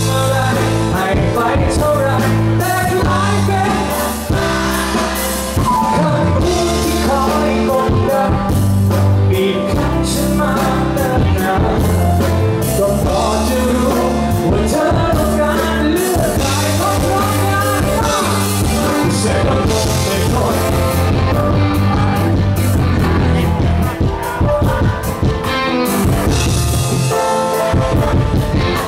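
Live pop-rock band playing a song with a male lead vocal over drums, bass and guitar, loud and continuous.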